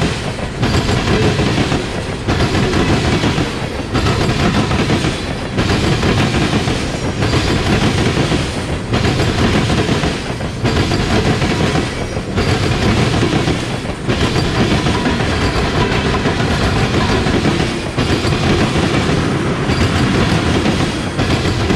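Freight train's steel wheels rolling on rail as a string of tank cars passes close by, a loud steady rumble and clatter. The rumble falls off briefly at a regular rhythm, about once every two seconds.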